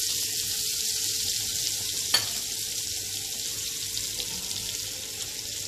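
Butter and a little oil sizzling as the butter melts in a nonstick wok: a steady frying hiss, with one sharp click about two seconds in.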